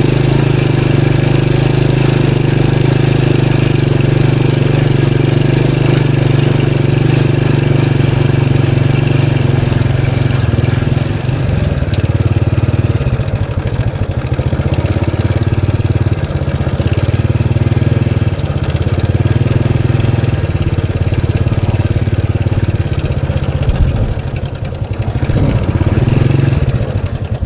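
Motor vehicle engine running while under way, a steady low hum for the first ten seconds or so, then pulsing more unevenly as the engine speed and load shift.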